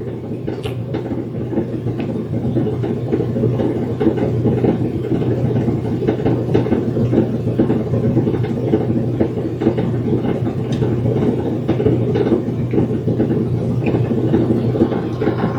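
A machine running steadily with a continuous low rumble and whir, with a few faint clicks over it.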